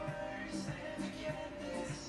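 Background music with a steady beat and plucked guitar notes.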